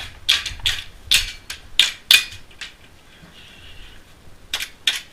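Gas blowback airsoft pistol firing a quick string of sharp shots, about eight in two and a half seconds, then two more after a short pause near the end.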